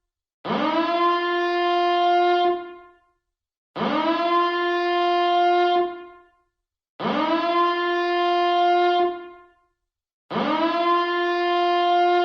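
Alarm siren billed as a nuclear power plant reactor siren: four blasts, each sliding quickly up in pitch to a steady low tone that holds about two seconds and then fades, with a short silence between blasts.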